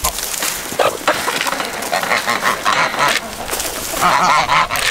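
Farm animals calling repeatedly around feeding time. The loudest call comes near the end, with a wavering pitch. Wind blows on the microphone throughout.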